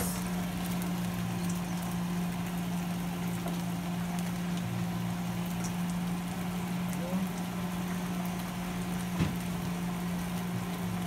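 Beef and bell peppers sizzling in a wok on a gas stove, a steady frying hiss over a constant low hum. A single short knock about nine seconds in.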